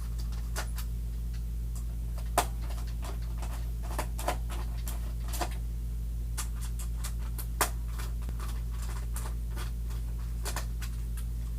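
Screwdriver driving screws back into a Roomba's plastic housing: scattered, irregular clicks and taps, with two sharper knocks about two and a half and seven and a half seconds in, over a steady low hum.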